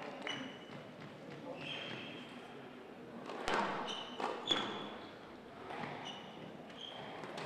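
Squash shoes squeaking on the court floor several times in short high squeals as the players move about, with a few sharp knocks about three and a half and four and a half seconds in.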